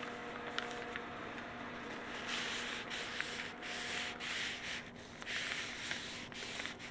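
Hands rubbing a sheet of paper down onto an inked gel printing plate. From about two seconds in they switch to burnishing with a crumpled wad of tissue, a louder papery scrubbing in back-and-forth strokes, about two a second, that presses the paper onto the paint to pull the print.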